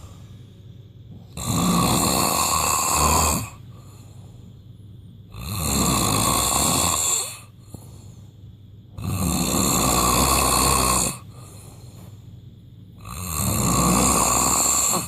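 A person snoring loudly: four long, rasping snores about four seconds apart, with quieter breathing between them.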